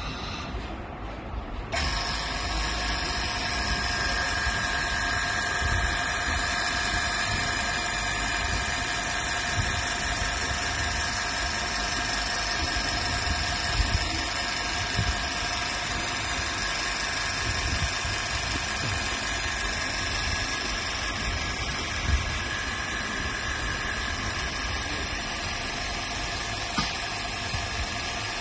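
A small electric machine switches on about two seconds in and runs steadily: a hissing whir with several steady whining tones over it, and a few faint clicks.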